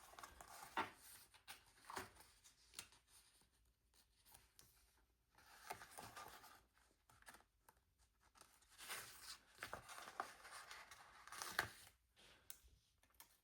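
Faint rustling and peeling of paper sticker sheets being handled, with a few small ticks scattered at irregular moments.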